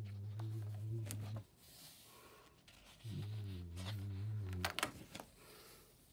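A low voice humming two long, droning notes, each about a second and a half, with a pause between them. Between the notes come paper rustles and clicks as spiral-bound sketchbook pages are turned.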